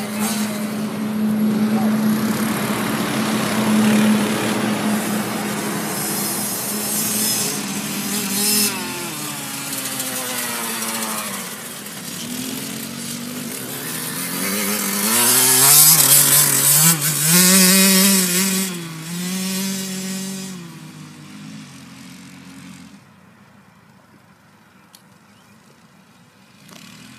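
KTM 65 youth dirt bike's two-stroke engine running, the revs rising and falling repeatedly as it is ridden. It is loudest past the middle, then fades to a faint drone near the end as the bike moves off.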